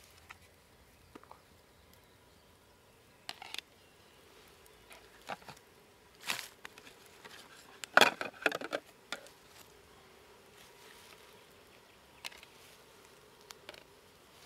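Scattered light clicks, taps and rustles, with a cluster of louder knocks about eight seconds in.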